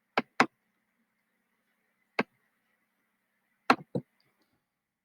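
Computer mouse clicking: a quick double click, a single click, then another double click, with silence between.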